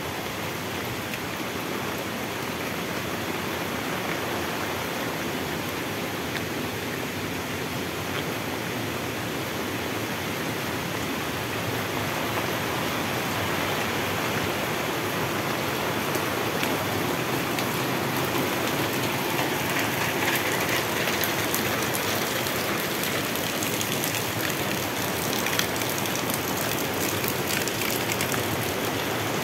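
Heavy tropical rain falling steadily as an even hiss, growing a little louder partway through.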